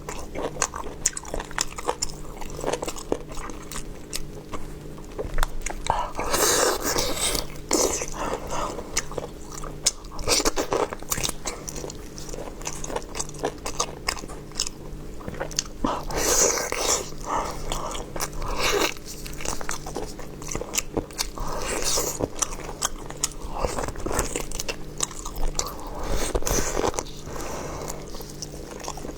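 A person biting and chewing food, with many sharp clicks from the bites and chews.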